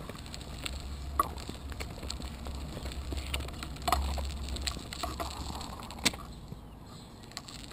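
Small child's bicycle being pushed along an alley, heard through a camera mounted on its handlebars: a low rolling rumble with scattered sharp clicks and knocks, the loudest about a second in, around four seconds and around six seconds.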